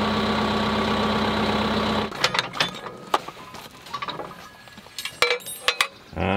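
Kubota tractor's diesel engine running steadily, then stopping abruptly about two seconds in. After that come scattered metallic clinks and knocks of the steel three-point hitch parts being handled.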